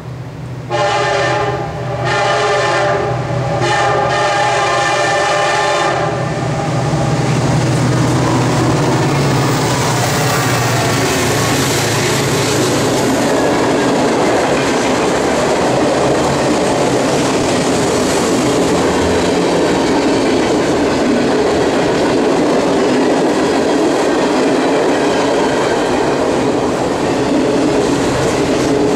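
Diesel locomotive horn on a freight train, starting about a second in and sounding for about five seconds, briefly broken a couple of times. Then the locomotives pass and a long string of freight cars rolls by, a steady rumble and clatter of steel wheels on rail.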